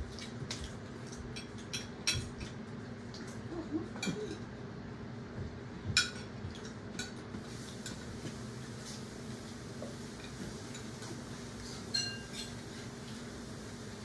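Dishes and cutlery clinking and knocking now and then, single sharp clinks every second or few, over a low steady background hum.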